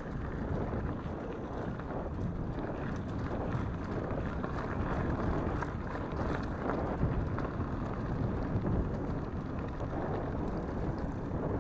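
Wind buffeting the microphone and mountain bike tyres rolling fast over a dirt forest trail, with small knocks from the bike over bumps.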